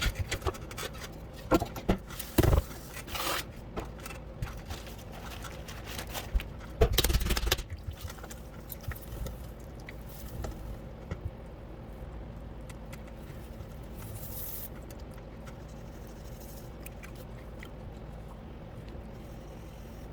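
Scraping and knocking of clay and tools at the potter's wheel, loudest in a few sharp knocks in the first several seconds, then giving way to a steady low hum.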